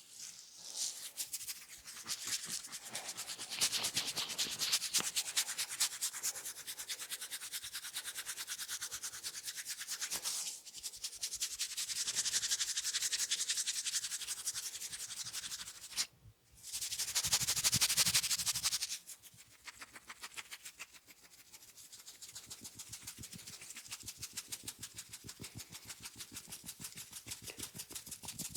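Fingers rapidly scratching and rubbing hair and scalp, close to the microphone, in quick strokes several times a second. They break off briefly about sixteen seconds in, then the loudest stretch of scratching follows.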